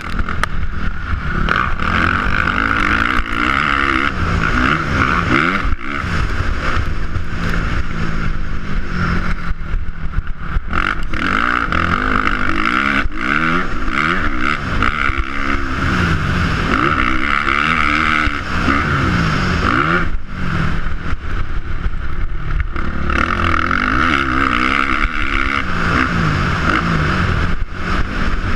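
Motocross dirt bike engine heard from the rider's helmet, revving up and dropping off again every second or two as the rider accelerates, shifts and backs off through the track.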